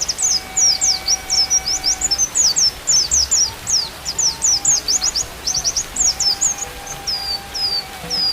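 White-eye (pleci) song: a fast, unbroken stream of high chirps and quick sweeping notes, with faint held flute notes underneath.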